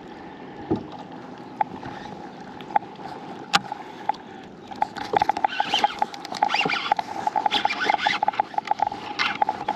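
Baitcasting fishing reel being cranked in, with rapid ticking from the reel from about five seconds in and a steady whir underneath. There is one sharp click about three and a half seconds in.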